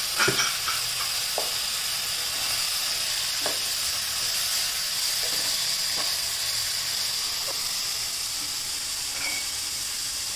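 Chopped vegetables sizzling steadily as they fry in oil, with no water added, in a non-stick pan. A wooden spatula stirring them gives a few short scrapes and taps against the pan.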